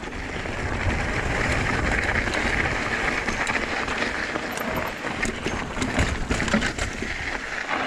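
Full-suspension 29er mountain bike (Trek Fuel EX 7) rolling fast down loose, rocky singletrack. A steady rushing noise of tyres over loose dirt and rock, with frequent small rattles and knocks from the bike over the bumps.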